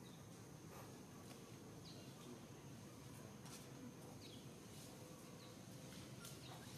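Near silence: faint outdoor ambience with a steady high insect hum and a few short, faint chirps.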